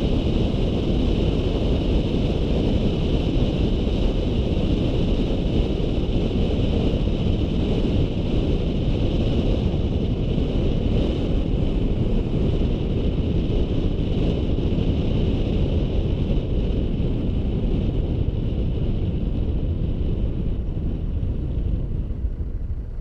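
Wind buffeting the microphone of a camera mounted outside on a Volkswagen Polo 9N3, over the car's steady road and engine rumble as it drives at low speed. The noise eases off near the end as the car slows.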